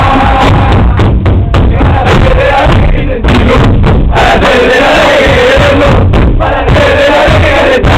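A crowd of football supporters singing a chant together in unison, very loud and unbroken.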